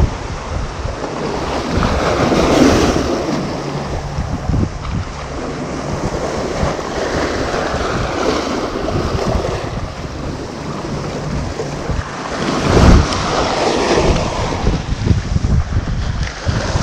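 Surf washing over a rocky shoreline, with strong wind buffeting the microphone. The wash swells and eases, and is loudest about thirteen seconds in.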